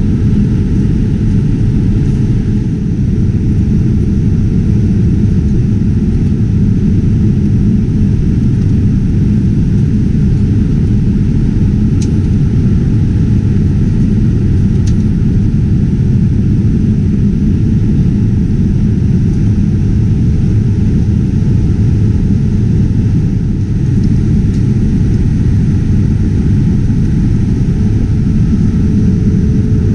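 Steady, loud low rumble of a Boeing 787-9 airliner cabin in flight: engine and airflow noise, unchanging throughout.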